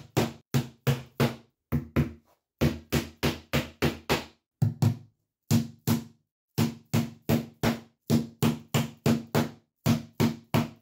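Hammer driving carpet gripper pins through the gripper strip and Zee Bar profile into a timber subfloor: a steady run of sharp blows, about two to three a second, broken by a few short pauses.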